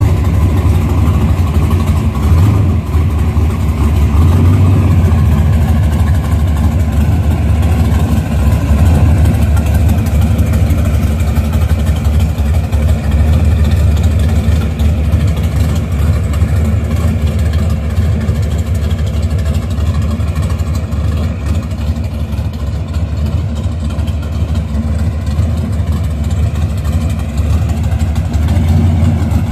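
1967 Camaro drag car's V8 engine running steadily at idle as the car rolls slowly away down the driveway.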